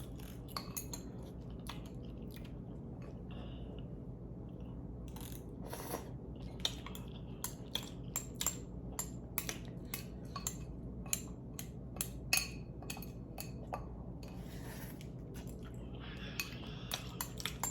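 Eating utensil clinking and tapping against a bowl while noodles are being eaten: many light, irregular clicks.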